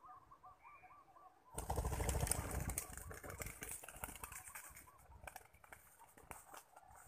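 A spotted dove's faint rolling coo notes repeat quickly. About a second and a half in, a sudden loud flurry of rustling and flapping is loudest for a second or so and then thins out over the next few seconds.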